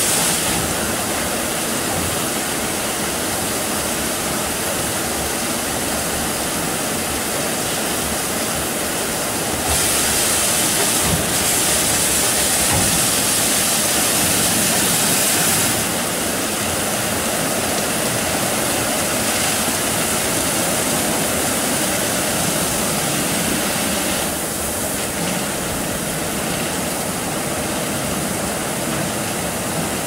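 Seven-brush roll-over car wash machine running: water jets spraying on a car with a steady hiss while the brushes spin. The spray gets louder and hissier about ten seconds in, for about six seconds.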